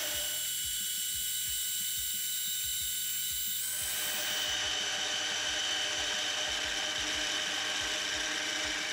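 Metal lathe turning down a 1045 steel bar with an insert cutting tool: a steady high machine whine over the hiss of the cut, which grows fuller about four seconds in.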